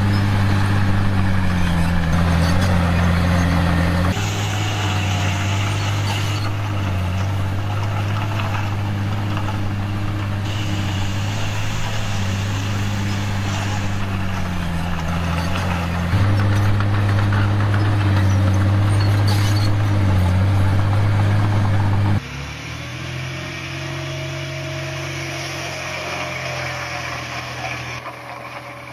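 Komatsu D51PX bulldozer's diesel engine running steadily, its pitch dipping and recovering as it works the blade, heard across several spliced clips that change abruptly every few seconds. About two thirds of the way through it becomes quieter, with a different engine note.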